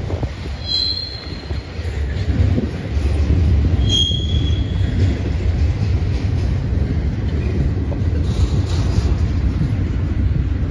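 Double-stack intermodal freight train's container cars rolling past, a steady low rumble of wheels on rail that grows louder about three seconds in. Two brief high squeals of wheel on rail cut through, one about a second in and another about four seconds in.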